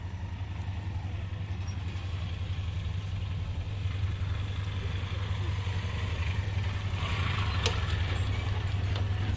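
Diesel locomotive of an approaching express train running at a distance: a steady low engine drone that grows slowly louder. A brief higher rattle stands out about eight seconds in.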